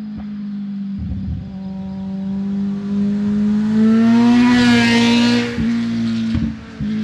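Kawasaki Z1000's inline-four engine through a LeoVince aftermarket exhaust, running under throttle as the bike approaches and passes, loudest about two thirds of the way through with the pitch bending up and then down. Near the end the sound drops sharply a few times in quick breaks.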